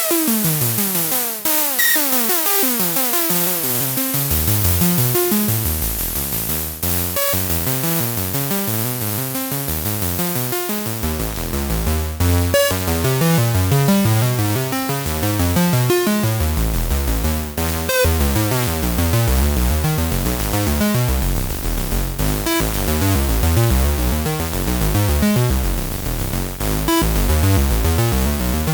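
Dreadbox Dysmetria synthesizer playing a sequenced electronic pattern of fast repeating notes, with downward pitch sweeps at the start and a deep bass line coming in about four seconds in, sweetened with reverb.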